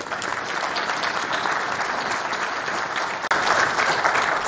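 An audience applauding in a hall, growing louder about three seconds in and stopping suddenly just after.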